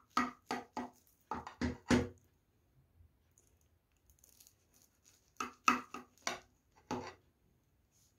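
A knife cutting into a baked potato-and-minced-meat casserole, knocking and scraping against the glass baking dish in short sharp strokes: a quick run of strokes in the first two seconds, then another run after a pause of about three seconds.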